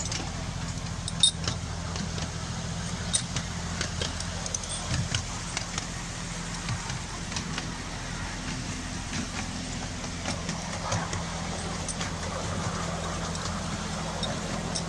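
Miniature railway train running, heard from a passenger car: the locomotive's steady low drone, with irregular clicks and knocks from the wheels on the track.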